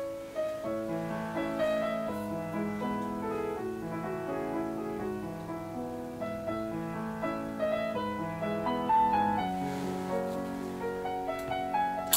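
Solo piano background music, with notes and chords played at an unhurried pace. A single sharp click comes right at the end.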